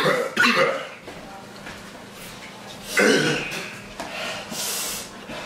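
Young men coughing, clearing their throats and hissing air through their teeth against the burn of extremely hot chicken wings: a loud outburst at the start, another about three seconds in, and a short hiss near the end.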